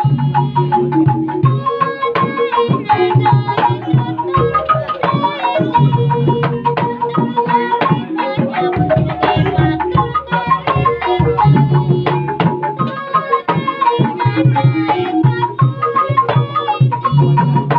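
Calung Banyumasan ensemble playing: bamboo calung xylophones struck in quick, interlocking pitched patterns over hand-beaten kendang drums, in a brisk, steady rhythm.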